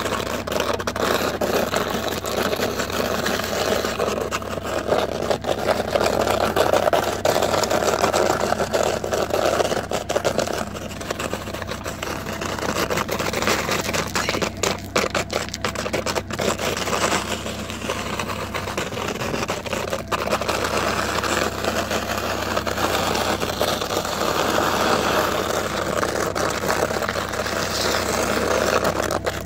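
Car driving along a road, a steady rush of tyre and road noise with engine hum, heard from the open trunk with the asphalt passing just below.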